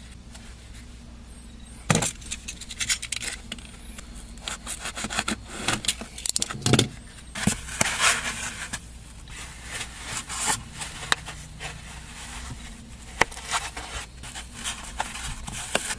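Parts being handled and fitted back together during reassembly after a washing machine valve replacement: irregular clicks and knocks, a sharp knock about two seconds in, and stretches of scraping and rubbing in the middle.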